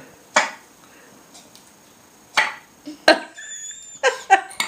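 A few short, sharp knocks spaced a second or two apart, then a quick cluster of them near the end.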